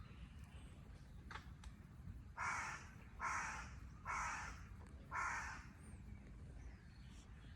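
A crow cawing four times, about a second apart, each call harsh and about half a second long.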